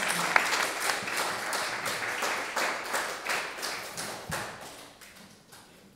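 Audience applauding, a dense clatter of clapping that thins out and dies away over the last second or so.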